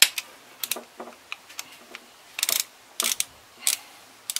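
Ratchet wrench clicking in short runs as it tightens the valve cover bolts on an Audi 2.4 V6, with single clicks between the runs and the longest run about halfway through.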